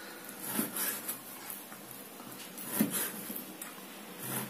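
Kitchen knife slicing raw pork into small pieces on a plastic cutting board, with a few soft knocks of the blade against the board.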